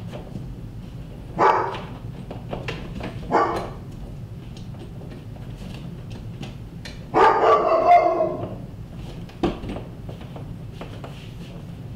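A dog barking, two short barks and then a longer drawn-out bark about seven seconds in, with one more short bark after it. Between the barks there are small scrapes and clicks of a cable being pulled through a wall, over a steady low hum.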